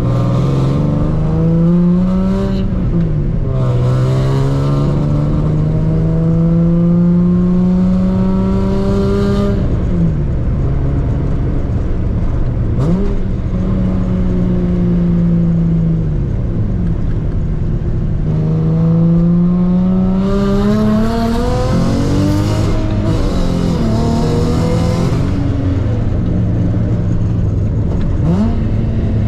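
Big-turbo Nissan 350Z engine heard from inside the cabin, accelerating hard through the gears of its manual gearbox. The revs climb, drop back at each gear change and ease off between pulls. A loud hiss rises with the harder pulls.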